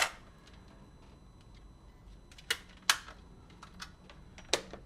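Sharp plastic clicks and taps from handling a Sony WM-FX491 cassette Walkman: a loud click at the start, then single clicks about two and a half, three and four and a half seconds in, with small ticks between.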